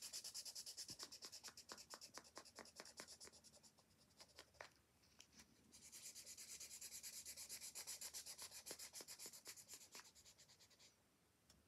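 Felt-tip marker scratching back and forth on paper as an area is coloured in, several quick strokes a second. There are two runs of scribbling with a short pause between them, about four seconds in.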